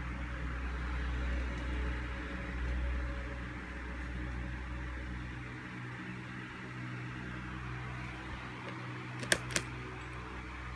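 Steady electrical hum from the magnetic ballast of a small fluorescent tube fixture, with two sharp clicks in quick succession a little over nine seconds in.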